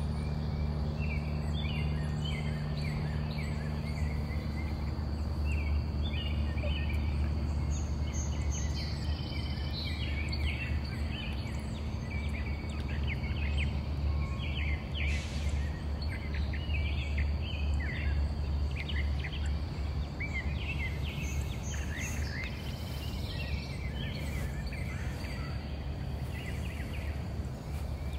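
Outdoor ambience: several small birds chirping and calling throughout, over a steady low hum and a thin, steady high-pitched tone.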